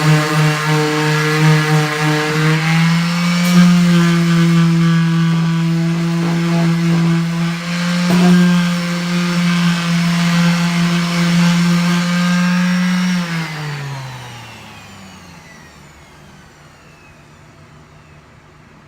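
Electric sander running with a steady, pitched motor whine, its pitch stepping up slightly a few seconds in, with a couple of brief clicks. About 13 seconds in it is switched off and spins down with a falling pitch, leaving a faint hum.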